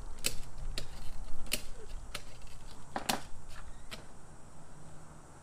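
Ratchet strap being cranked tight: a string of sharp ratchet clicks, one every half second or so, with a louder clatter about three seconds in.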